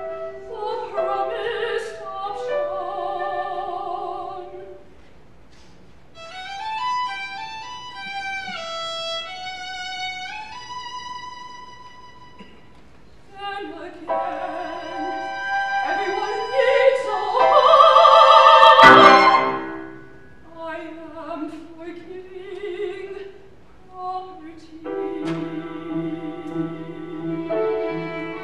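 Soprano singing with violin, flute and piano in a contemporary classical art song. The music swells to its loudest about eighteen seconds in, then falls back to quieter held notes.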